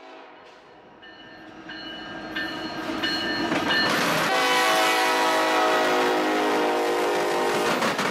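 Norfolk Southern diesel locomotive's air horn sounding as the train approaches: several short blasts, then a louder long blast beginning about four seconds in, over the rumble of the locomotive.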